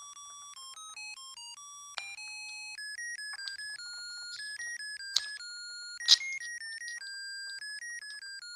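Background music: a simple electronic melody of single high notes. About five and six seconds in come two sharp plastic clicks, the loudest sounds, as a screwdriver pries open the molded plastic plug housing of a Christmas-light string.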